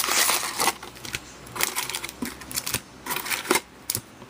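Foil trading-card packs and cardboard being handled by hand: irregular crinkling, rustling and light clicks, busiest in the first second.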